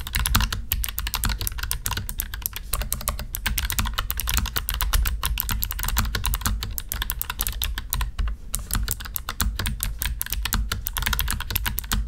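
Fast, continuous typing on a Keychron K3 (version 1) low-profile mechanical keyboard with clicky blue switches: a rapid stream of sharp key clicks.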